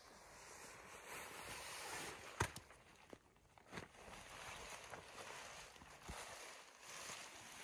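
Rustling of a rain poncho and a backpack being handled, with a few short sharp clicks or knocks, the loudest about two and a half seconds in.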